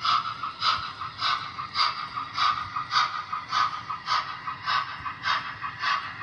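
HO scale Trix Flying Scotsman model steam locomotive running with its train: an even, repeating chuff beat of just under two a second.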